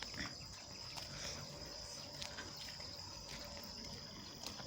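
Insects calling in a steady, unbroken high-pitched chorus, with a few short faint calls or clicks over it.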